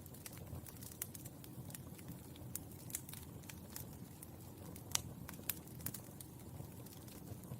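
Burning charcoal crackling: irregular sharp pops and ticks over a low, steady rumble, with the loudest pop about five seconds in.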